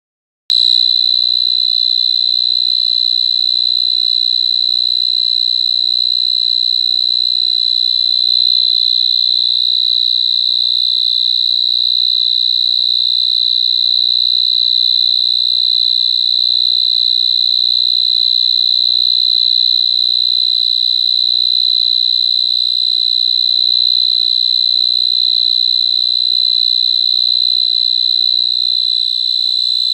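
A cricket trilling: one unbroken, high-pitched trill that starts about half a second in and holds steady.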